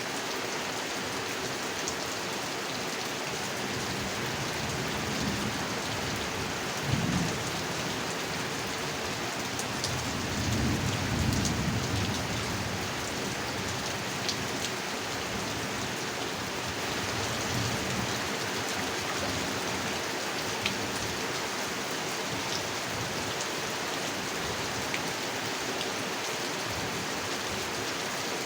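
Steady rain falling on a pond, with individual drops ticking sharply here and there. Two low rumbles of thunder rise under the rain, the second one longer.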